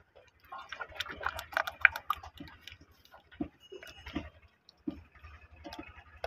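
Oil glugging and splashing as it is poured from a plastic jug into a metal funnel: irregular pops and clicks, busiest in the first two seconds, with a faint low hum underneath.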